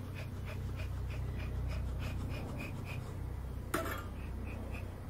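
Agitated honeybees buzzing around an opened hive: a steady low hum, with faint ticking repeating several times a second and a single sharp knock near the end.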